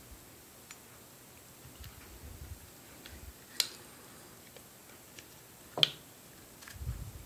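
Glock pistol parts being handled as the locking block is fitted back into the polymer frame: two sharp clicks, the second louder, among faint ticks and soft bumps.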